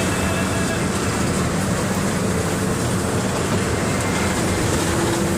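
Mercedes-Benz OF 1721 BlueTec 5 bus's four-cylinder diesel engine running, a steady loud rumble mixed with noise. A steady tone joins it near the end.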